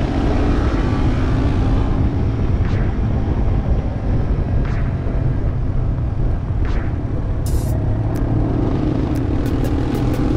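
Dual-sport motorcycle riding: a Yamaha TW200's single-cylinder engine running steadily, mixed with a heavy low rumble of wind and road noise.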